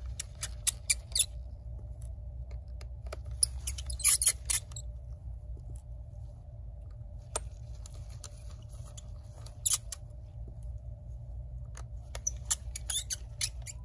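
Small precision screwdriver backing screws out of a MacBook Air logic board: light, sharp metallic clicks and ticks in short bunches near the start, around four seconds in, once or twice near the middle, and again near the end, over a low steady hum.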